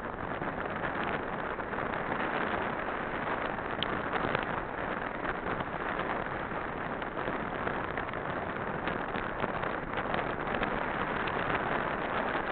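Steady rush of wind on the microphone and a bicycle's tyres rolling over a dirt track as a dog tows the bike along, with a few faint clicks and rattles from the bike.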